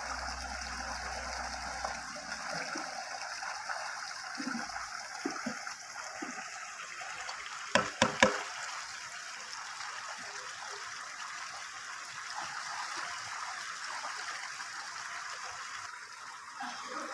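Steady rush of running water, with three sharp knocks in quick succession about halfway through.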